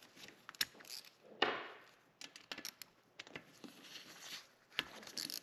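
Faint metallic clicks and ticks of an 8 mm socket on a T-handle working the oil filter cover bolts out of the engine case, with one brief louder scrape about a second and a half in.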